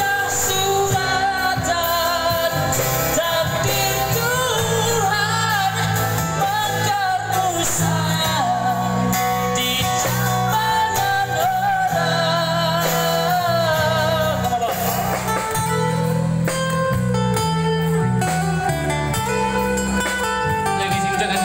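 Live amplified band playing a song: a male lead vocal over guitar, electric bass guitar and drums.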